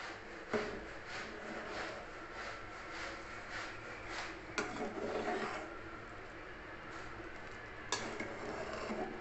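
Metal ladle stirring and scooping through simmering curry in an aluminium pot, with soft rhythmic sloshing and scraping. It gives three sharp clinks against the pot: about half a second in, near the middle and near the end.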